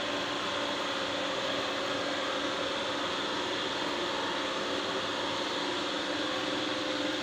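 Steady machine-like hum with an even hiss, unchanging throughout, with no distinct knocks or strokes.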